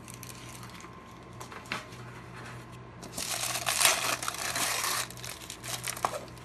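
Clear plastic film crinkling as it is pulled off and crumpled by hand, a dense crackle lasting about two seconds midway. A few light knocks and clicks come before and after it.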